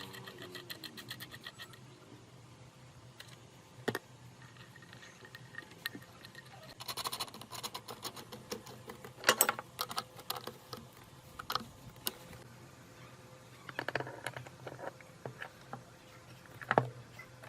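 Scattered clicks, clinks and short rattles of small metal parts being handled and scraped, with a few sharper knocks among them.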